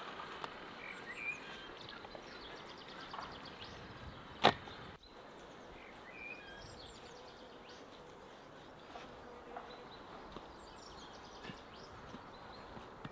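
Birds chirping now and then over a steady outdoor background, with one sharp knock about four and a half seconds in.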